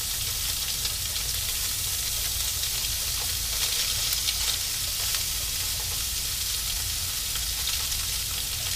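Butter-coated, spice-rubbed redfish fillets sizzling in a hot nonstick frying pan, a steady hiss with fine crackling. The sizzle swells a little about four seconds in as a second fillet goes into the pan.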